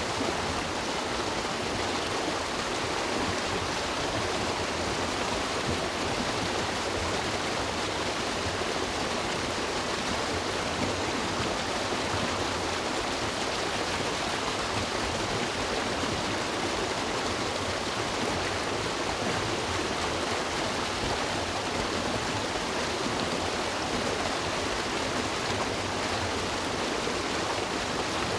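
A river's water rushing steadily over rocks, an even continuous rush without breaks or single splashes.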